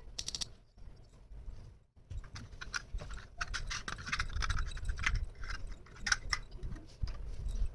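Small plastic toy-kitchen pieces and packaging being handled, with rapid irregular clicking and rustling that gets busier about two seconds in.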